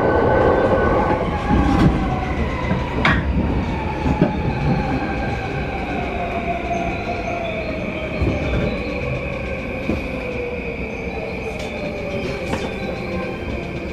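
Inside a JR Yamanote Line E235-series electric train braking into a station: the traction motor whine falls slowly in pitch as the train slows. A few sharp clicks come in the first four seconds, and a steady high squeal sets in about three seconds in.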